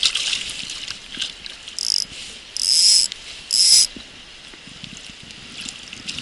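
Spinning reel's drag buzzing in three short bursts as line is pulled off, a sign of a hooked trout running, over a steady hiss of water.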